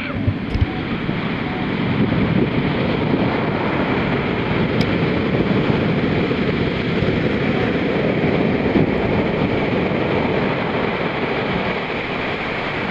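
Heavy shorebreak surf breaking and washing up the sand: a loud, steady rush of water that grows louder about two seconds in.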